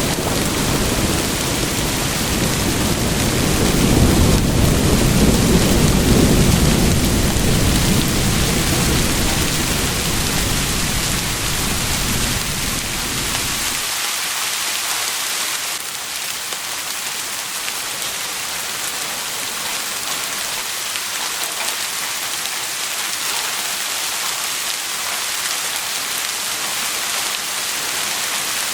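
Steady rain with a low rolling rumble of thunder that swells about five seconds in and cuts off abruptly about halfway through, leaving only the even hiss of the rain.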